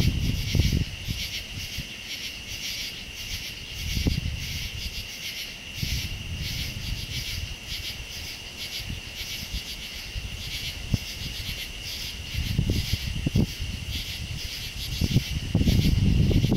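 Night insects chirping in a steady, fast-pulsing chorus. Low rumbles of wind on the microphone come and go, loudest near the end.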